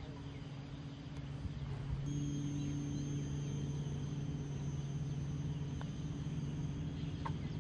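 Steady low hum, with a faint high-pitched whine joining about two seconds in and a few faint chirps near the end.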